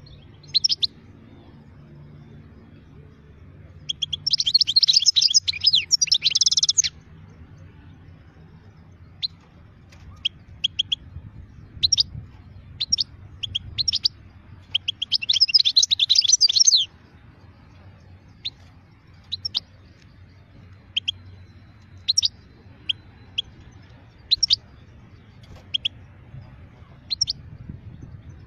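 Caged wild-caught European goldfinch singing: two bursts of rapid twittering song, each about three seconds long, with single sharp call notes scattered between and after them.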